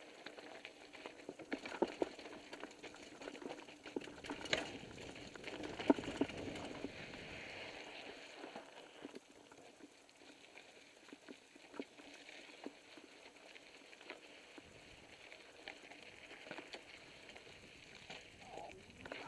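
Mountain bike rolling down a rocky desert trail: tyres crunching over loose gravel and rock slabs, with the bike rattling and clattering over bumps. Frequent short knocks, the loudest about six seconds in.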